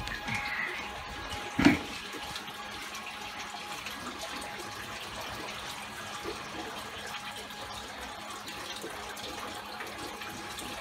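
Water running and splashing through a saltwater aquarium's sump and plumbing as a steady wash, with a faint steady hum underneath. One sharp knock sounds just under two seconds in.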